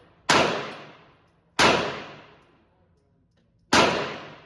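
Three single gunshots from a pistol, spaced about one and two seconds apart. Each is a sharp crack that rings out and dies away over about a second.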